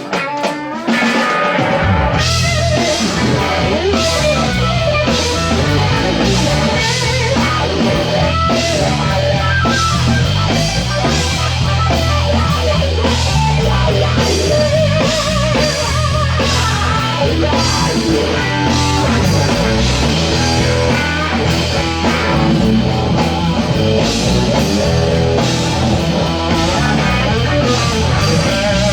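A band playing rock music: electric guitar with drums and a low stepping bass line, which come in about two seconds in and then keep a steady beat.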